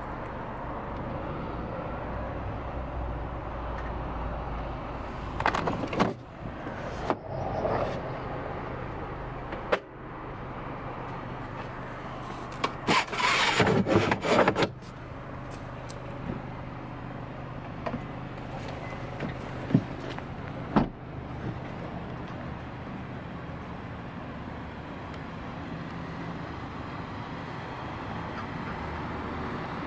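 Steady background noise with scattered knocks and clicks. A little over twelve seconds in comes a loud rattling, sliding burst of about two seconds as the Honda CR-V's retractable cargo cover is pulled out by hand.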